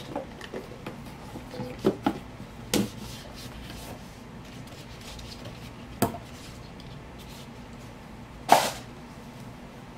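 Handling noise as a stethoscope is taken out of its white box: a few scattered light taps and clicks, with a short louder rustle about eight and a half seconds in.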